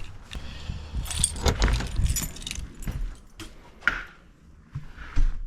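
A bunch of keys jangling and clinking as they are handled, with scattered knocks, and one sharp thump near the end.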